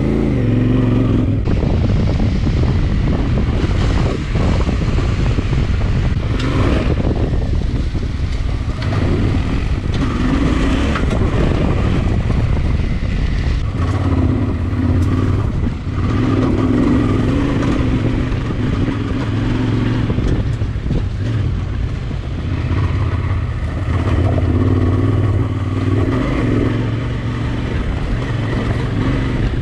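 Adventure motorcycle riding along a dirt trail, its engine running steadily under a continuous rush of wind and tyre noise.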